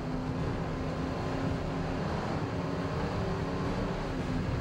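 Miss Budweiser turbine-powered unlimited hydroplane running at speed, heard from on board: a steady engine drone with a few held tones over a rush of wind and water noise.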